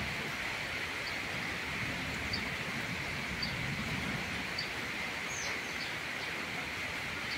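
Steady hiss of falling rain, with faint short high peeps about once a second from red junglefowl chicks and one falling chirp a little past halfway.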